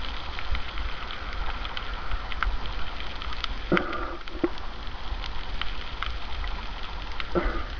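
Underwater sound picked up by a waterproof camera while snorkelling over a reef: a steady crackling hiss with many scattered clicks over a low rumble, and two short louder bursts a little under four seconds apart.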